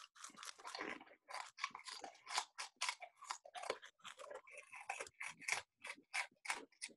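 Crackers being chewed fast, a quick run of crunches several times a second.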